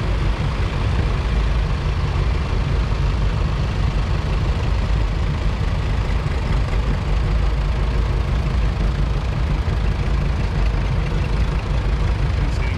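Vintage farm tractor engines running in a slow parade, a steady low rumble that does not change.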